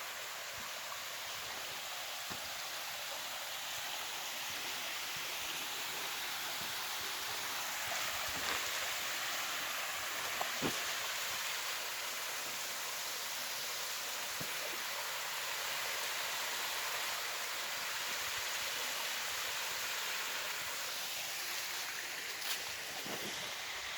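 Small waterfall with steady splashing, rushing water, and a few faint clicks.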